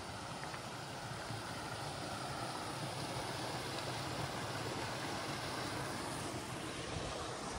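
Small mountain creek running in little cascades over rock ledges: a steady rush of water that grows a little louder over the first few seconds.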